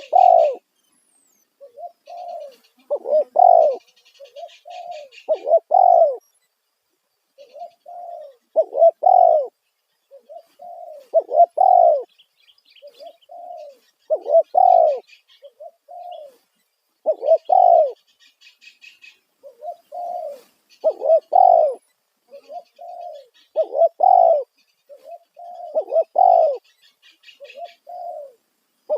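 Spotted dove (tekukur) cooing loudly: short phrases of two to four coos, repeated every two to three seconds. Faint high chirping sits behind it.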